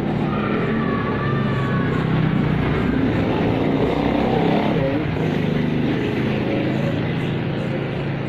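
Electric hair clipper running with a steady buzz as it cuts hair at the side of the head.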